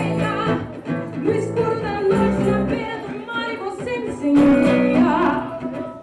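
Live rock band music, guitars with a woman singing the melody.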